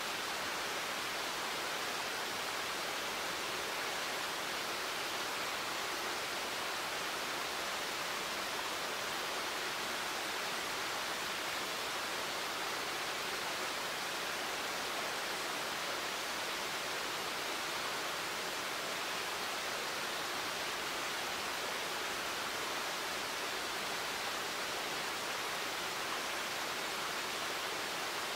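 Steady, even hiss that stays the same throughout, with no separate events or tones.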